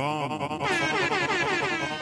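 Channel-intro sound effect: a loud pitched tone with many overtones that warbles rapidly up and down, several wobbles a second.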